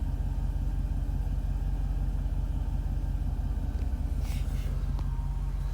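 2006 Jeep SRT8's 6.1-litre Hemi V8 idling steadily once warmed up. It runs smoothly, with the scan tool counting zero misfires, which fits the owner's view that the cylinder 5 misfire only happens on a cold start.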